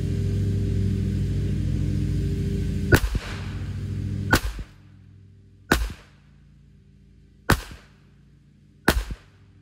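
Five shots from a Glock 42 pistol in .380 ACP, the first about three seconds in and the rest roughly one and a half seconds apart. A steady low engine hum runs under the first two shots and stops after the second.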